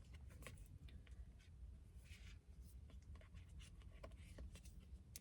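Near silence: room tone with faint, scattered light clicks and a soft rustle about two seconds in.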